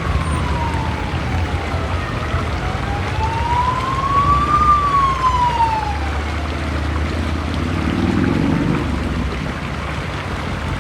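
Emergency vehicle siren wailing, its pitch sliding slowly up and down about twice before fading in the second half, over a steady low rumble.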